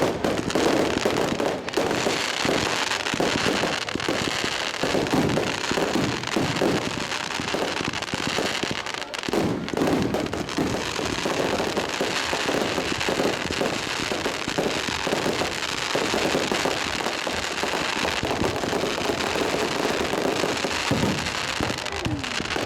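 Fireworks display: a rapid, continuous barrage of bangs and crackling.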